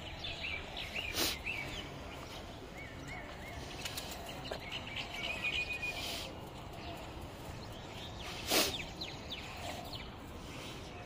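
Small birds chirping in the background over a steady outdoor hum, with a couple of short bumps of handling noise, the loudest about eight and a half seconds in.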